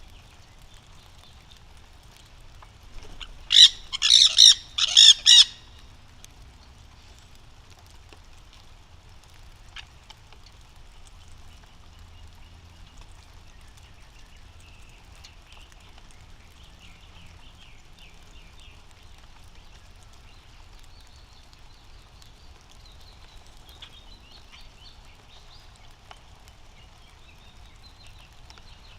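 Nanday conures screeching: a quick run of about five loud calls a few seconds in. Faint, softer bird chirps follow later.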